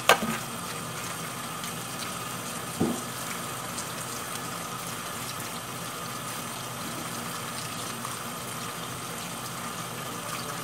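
Kitchen tap running steadily, water splashing over limes being rinsed by hand. A sharp knock comes just after the start and a duller thump nearly three seconds in.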